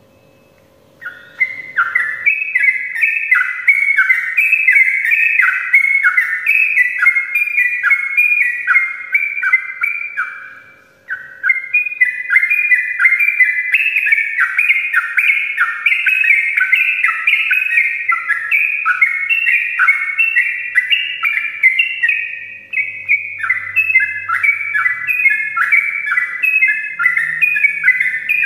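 Yellow-vented bulbul (trucukan) singing its long 'ropel' song: a fast, unbroken run of short downward-sliding notes that starts about a second in and breaks off briefly near the middle.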